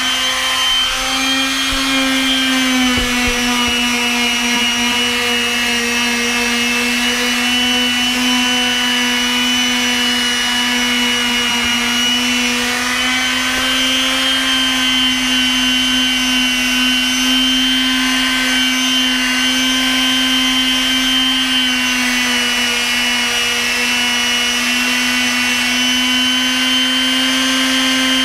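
Electric Makita random orbit palm sander running steadily while sanding deck boards, a constant motor hum whose pitch sags slightly about two seconds in and again near the end.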